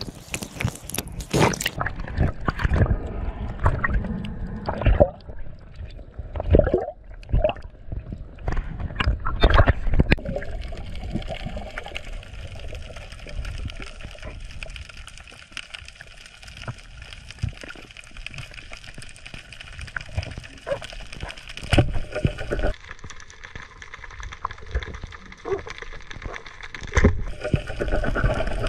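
Underwater sound picked up through a camera housing: water gurgling and sloshing, with a run of knocks and bumps in the first ten seconds, then a steady hiss broken by two sharp knocks near the end.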